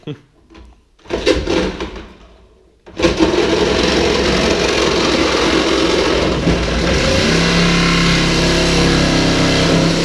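An electric cutting tool starts up about three seconds in and runs steadily as it cuts into the car's sheet-metal body, with a blade that the user thinks is a bit blunt. A short burst of noise comes about a second in.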